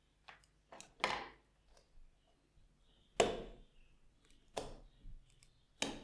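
A handful of short, sharp metallic clicks and taps at irregular intervals, the loudest a little past three seconds in, from handling the soldering iron's heater and terminal block and putting a flat screwdriver to its small terminal screws.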